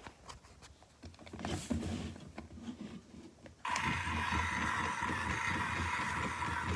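Plastic clicking and rattling from a toy truck being handled, then about 3.7 s in the Road Rippers Triceratops monster truck toy's sound effect of a racing engine starts abruptly and runs on loud and steady.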